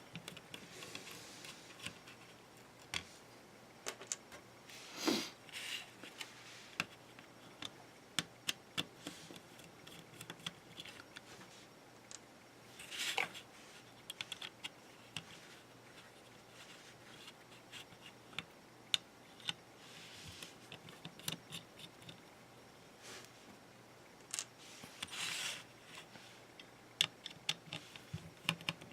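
Plastic charge-controller case and circuit board being handled and pulled apart: scattered small clicks and taps, with brief scrapes about 5, 13 and 25 seconds in.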